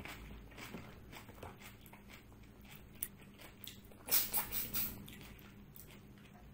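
Close-miked eating: a handful of rice and mutton paya curry eaten by hand and chewed, with small mouth clicks, a sharp click about three seconds in and a loud burst of chewing about four seconds in.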